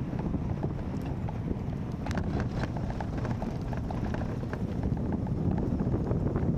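Wind rushing over the microphone of a bicycle-mounted camera while riding, with a low rumble from the tyres on brick paving and scattered sharp clicks.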